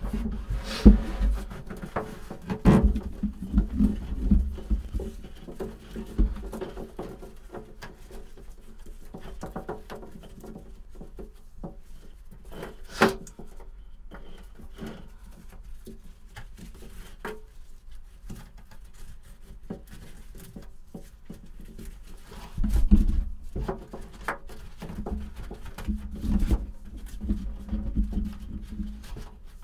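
Rope anchor rode being handled and fed down into a small anchor locker: irregular knocks, thumps and rubbing. There are clusters of louder thumps in the first few seconds and again about two-thirds of the way through, and one sharp click near the middle.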